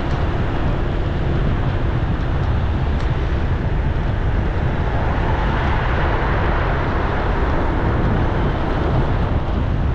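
Steady city traffic noise: a continuous low rumble of vehicles.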